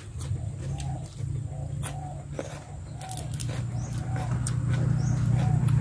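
A bird cooing softly in a repeated series of short notes, about two a second, over a steady low rumble, with scattered small clicks from eating at the table.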